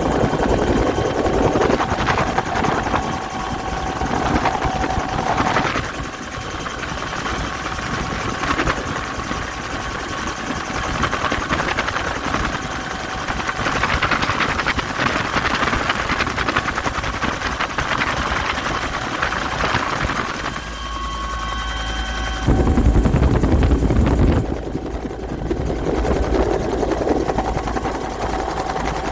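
Bell 212 helicopter's twin turboshaft engines and rotor running, a steady turbine whine over continuous rotor noise; a louder low rumble swells for about two seconds near the end.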